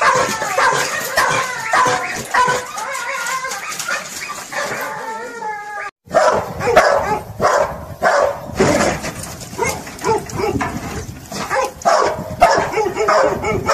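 Young hunting dog barking and yelping at wild boar held in a pen, a bay test of a hog dog. High, bending yelps and whines come first, then, after a brief dropout about six seconds in, a run of repeated sharp barks.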